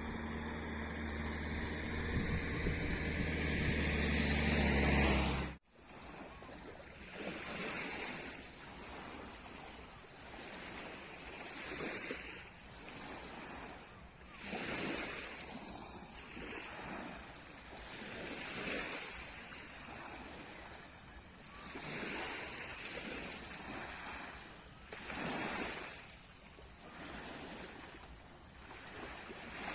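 Sea waves breaking and washing onto the shore, each surge swelling and fading every three to four seconds, with some wind on the microphone. For the first five seconds or so, a steady low mechanical hum grows louder, then cuts off abruptly.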